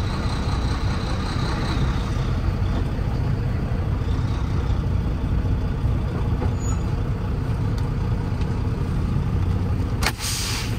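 Volvo 780 semi truck's diesel engine running steadily, heard from inside the cab as the truck rolls slowly. Near the end comes a short hiss of air from the air brakes.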